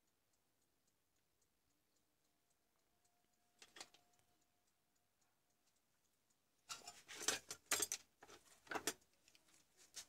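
Handling noise on a workbench: a brief clatter about four seconds in, then a louder run of knocks and rattles for a couple of seconds near the end, over a faint quick regular ticking.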